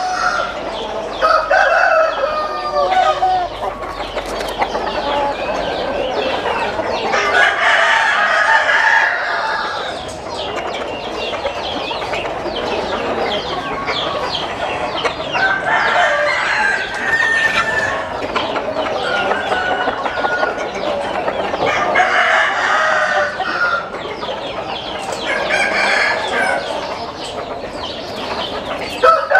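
A flock of chickens clucking, with roosters crowing again and again over it.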